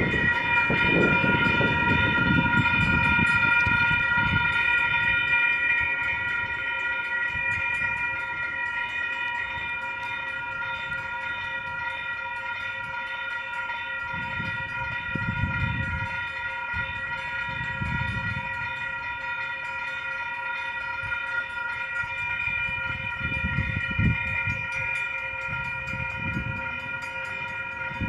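Railroad grade-crossing warning bell ringing continuously while the crossing signals are active, one steady high-pitched tone. Low rumbles rise and fall underneath now and then.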